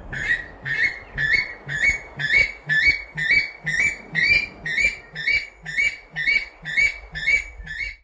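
Weka calling: a series of rising whistled 'coo-eet' notes, about two a second, each with a short low note between them.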